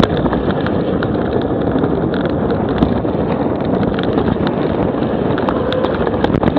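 Mountain bike rolling fast along a gravel forest track: tyre noise on the gravel and wind buffeting the on-bike camera's microphone, with frequent small clicks and rattles from the bike and stones.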